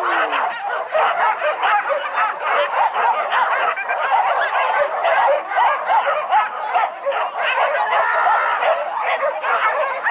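A pack of boar-hunting dogs yelping and barking in a dense, unbroken chorus of many overlapping voices.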